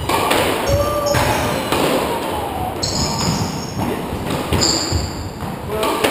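Squash rally: the ball is struck by rackets and smacks off the walls and the wooden floor, a sharp hit every second or so. Sneakers squeak on the floor twice, about three seconds in and again near five seconds, as the players lunge and turn.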